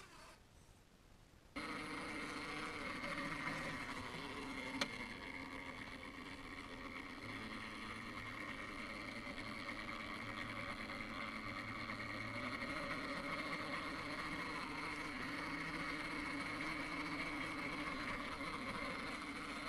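Axial Capra RC crawler's Hobbywing Axe 540 brushless motor and geared drivetrain whining steadily as it crawls over rock, heard close up from on board. It starts suddenly about a second and a half in, with one sharp click near 5 s.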